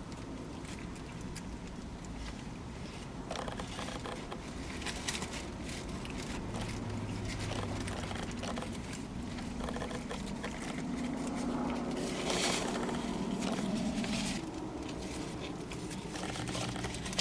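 A person eating a sandwich: chewing and mouth noises with occasional short crackles of the wrapper being handled, over a steady low hum.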